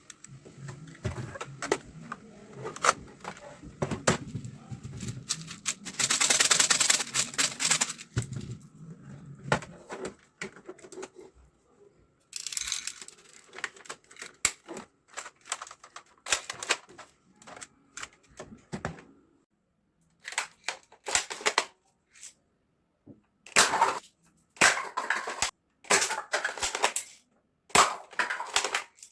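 Handling of a toy Kar98k bolt-action rifle and its packaging: rustling, with many sharp plastic clicks and knocks. The rustling is densest about six to eight seconds in, and the last several seconds hold separate loud clacks.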